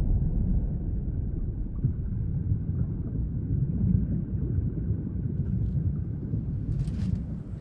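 Deep, low rumble slowly dying away after an explosion, with a few faint ticks near the end.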